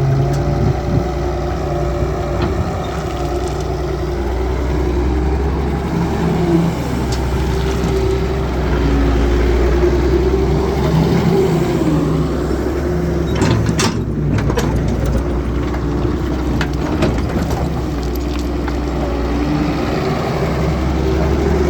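Doosan DX140 excavator's diesel engine running steadily, its pitch rising and falling a little as it works, with a cluster of sharp knocks a little past halfway.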